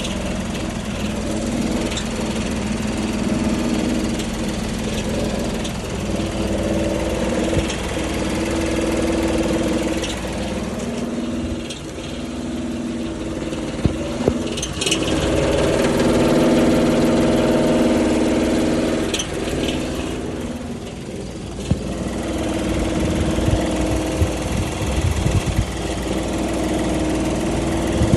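Honda Odyssey engine running steadily, rising and falling a little in level, with scattered sharp clicks or ticks, most of them in the second half. The owner takes this for a bad, abnormal engine noise.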